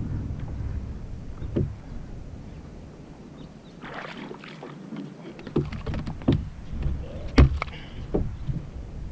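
Low rumble of water moving under a plastic fishing kayak, then a hooked largemouth bass splashing and thrashing at the surface beside the hull about four seconds in, followed by several sharp knocks and thumps, the loudest near the end.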